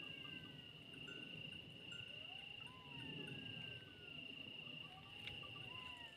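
Jackals howling in the distance, several thin wavering wails that rise and fall and overlap, over a steady high-pitched cricket trill.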